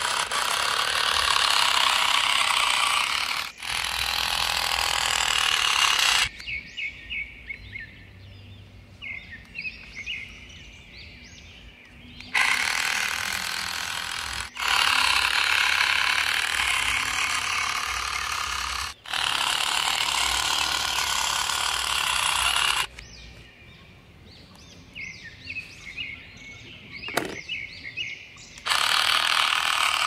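Small electric motor and plastic gearbox of a toy truck whirring in long spells, the first about six seconds and the second about ten. In the quieter stretches between, birds chirp.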